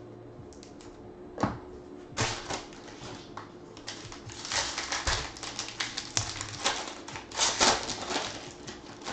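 Clear plastic wrapper of a pack of baseball cards being pulled open by hand: a sharp click about a second and a half in, then a run of crackly crinkling that is loudest in the second half.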